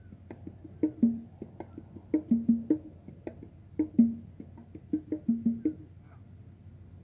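Music made of short, pitched wood-block-like knocks in a repeating pattern of two- and three-hit groups, stopping about six seconds in.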